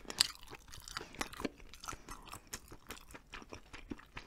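Close-miked chewing of gelatinous hagfish-skin jelly (kkomjangeo skin jelly): a faint, irregular run of small clicking mouth sounds, several a second.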